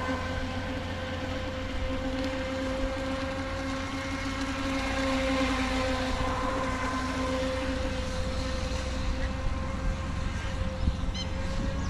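UDI 022 Tylosaurus RC speedboat's brushless electric motor giving a steady whine as the boat runs circles on the water.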